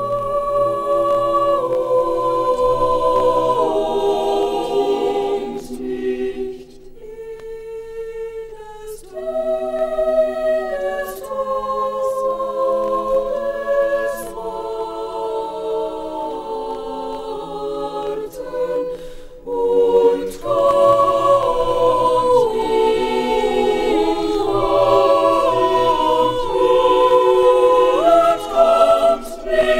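Choir singing sustained, slowly shifting chords. The singing thins out and softens about seven seconds in, returns, and breaks off briefly around twenty seconds in before coming back in full.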